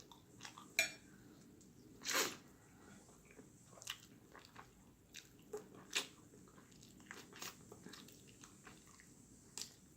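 Close-up eating sounds: chewing, with scattered short wet clicks and smacks of the mouth. The strongest comes about two seconds in.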